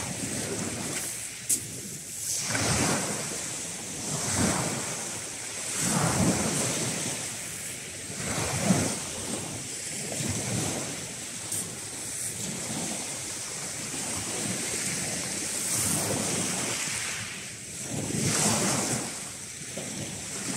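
Small waves breaking and washing up a shingle beach, swelling and fading every couple of seconds, with wind buffeting the microphone. A few short sharp clicks stand out, the loudest about halfway through.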